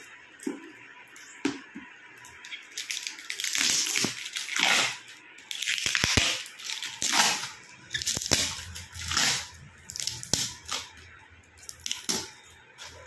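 Brown plastic packing tape on a parcel being picked at, peeled and torn off by hand, crinkling and crackling in irregular bursts.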